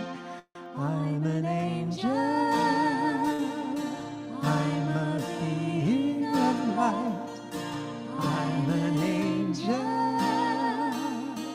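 A woman and a man singing a slow, gentle song in harmony to strummed acoustic guitar. The sound cuts out for a moment about half a second in.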